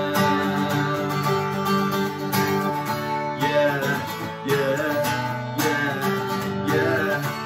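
Acoustic guitar strummed in a steady rhythm, with a man singing "yeah, yeah" over it.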